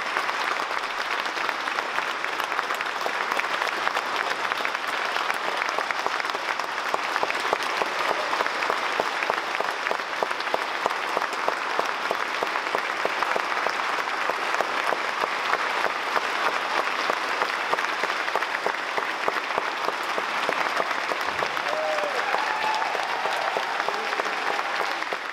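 A church congregation and choir applauding: many hands clapping together in a steady, sustained ovation.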